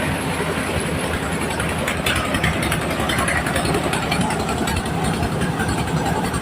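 Engine-driven mobile corn sheller running steadily: a constant engine drone under a dense, rapid mechanical clatter.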